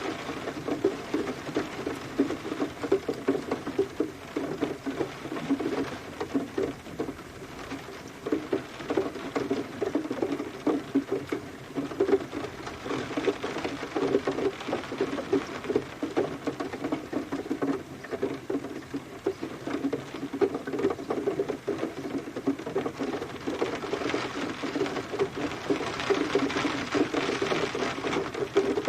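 Steady rain, with dense, uneven pattering of drops striking a surface.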